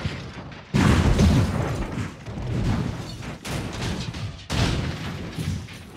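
Drone crashing into a building and tumbling down. A sudden loud burst of noise with a low rumble comes about a second in, fades, and a second burst follows past four seconds.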